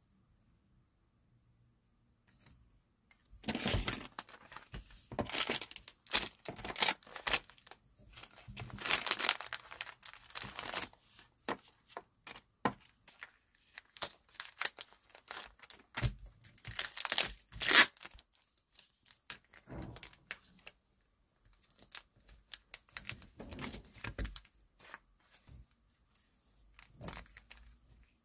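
Thin clear plastic packaging, cellophane bags and sleeves, crinkling and rustling in irregular bursts as hands handle it. It starts about three seconds in, with a short lull past the middle.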